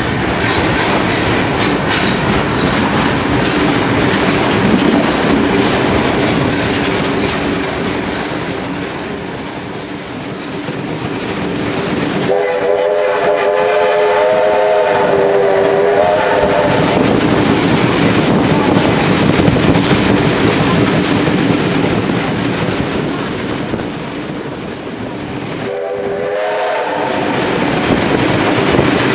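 Wheel and carriage noise of a steam-hauled passenger train on the move, heard from inside a carriage. The C32-class steam locomotive 3237 sounds its whistle in one long blast of nearly four seconds about halfway through and a short blast of about a second near the end.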